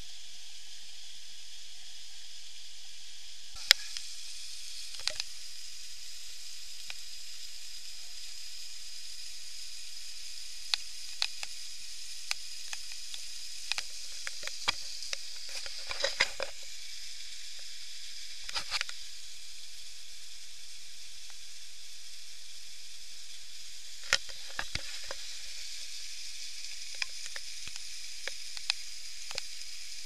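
Steady hiss with scattered sharp clicks and taps, bunched in two clusters, from an action camera sealed inside its clear waterproof housing. The case shuts out most outside sound, leaving the recording's own hiss and the knocks of hands handling the housing.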